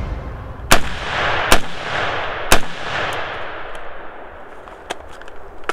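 Three shots from a short-barrelled AR-10 in .308 with a 12.5-inch barrel, about a second apart, each followed by a long rolling echo that fades away. A few light clicks near the end.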